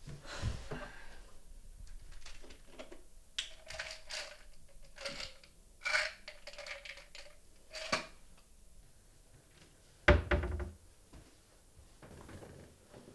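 A plastic pill bottle being handled and opened at a kitchen counter: a run of light clicks and small knocks, then one heavier thunk about ten seconds in.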